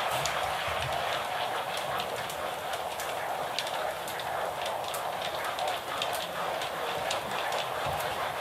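Many pens scratching and tapping on paper at once: a steady scratchy hiss with many small scattered clicks.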